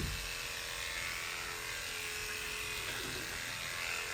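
Electric hair clippers running with a steady buzz as they shave a head down to the scalp.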